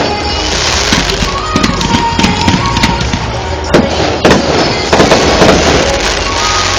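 Fireworks display: a dense string of bangs and crackles, with the sharpest reports about four to five and a half seconds in, over music in the background.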